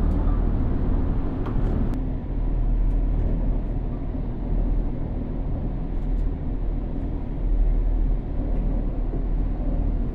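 Steady low rumble inside a moving aerial cable-car cabin, with a few faint ticks.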